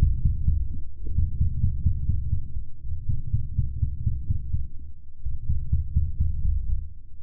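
Audio slowed down 32 times, turned into a deep, pulsing low rumble with nothing high-pitched left in it.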